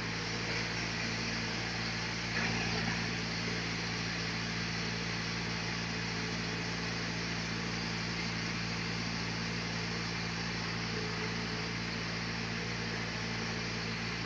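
Sawmill machinery running steadily with a constant hum. It gets briefly a little louder about two and a half seconds in.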